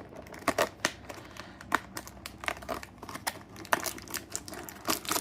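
Fingers picking and prying at a cardboard blind box, opening one of its small perforated doors: a run of irregular sharp clicks, taps and light crinkles.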